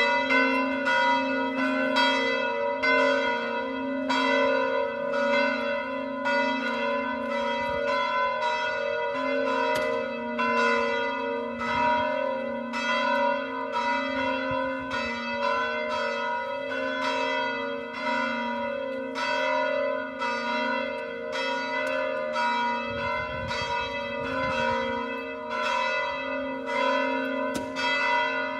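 Bells ringing continuously, struck again and again in a steady run, each stroke ringing on into the next.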